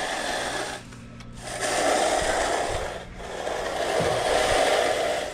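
A hand concrete finishing tool rubbed across the wet concrete surface in two long scraping strokes, with a dip between them, over a steady low engine hum.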